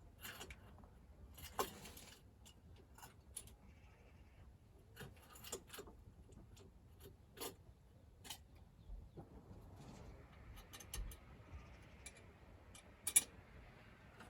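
Faint, scattered clicks and light taps of hand work on a car's engine bay parts, with one sharper click near the end.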